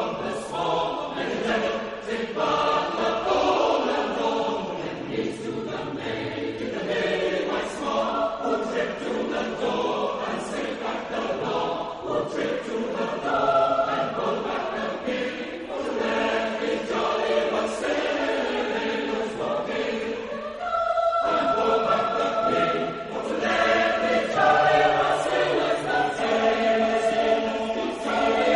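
A choir singing a wassail song in several parts, with a brief pause in the singing a little after twenty seconds in.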